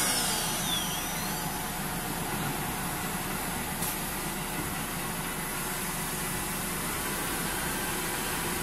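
Four-spindle CNC wood router after cutting has stopped: a thin whine falls in pitch over the first second or so, then the machine runs on with a steady mechanical hum and hiss.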